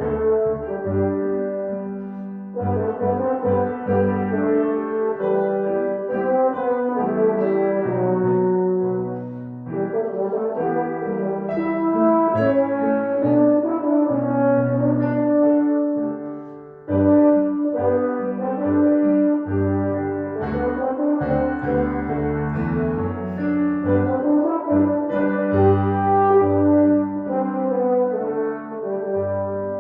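Closing instrumental music of slow, sustained chords with a brass-like tone, played as the postlude after the service's final blessing; it fades near the end.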